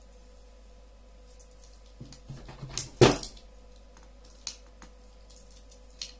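Small clicks and handling noises of hands working on the small parts of a disassembled Bluetooth headphone, with a louder short sound about three seconds in.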